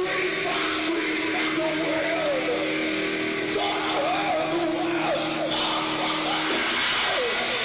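Heavy metal band's sound check: amplified electric guitar holding a chord, with wavering notes that slide up and down over it.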